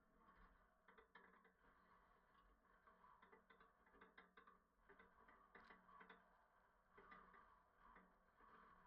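Near silence with faint, irregular small clicks and crackles.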